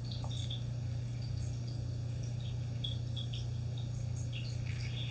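Quiet room tone: a steady low hum with a few faint, short high-pitched chirps scattered through it.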